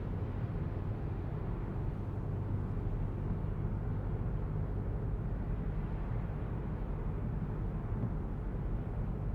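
Steady in-cabin running noise of a 2023 Citroen C5 Aircross with a 1.5 diesel while driving: a low, even rumble of road and engine.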